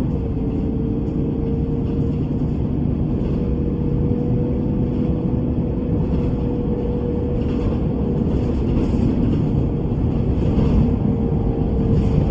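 Bus in motion: a steady engine and road rumble with a steady mid-pitched whine, and a few faint hissy swishes in the second half.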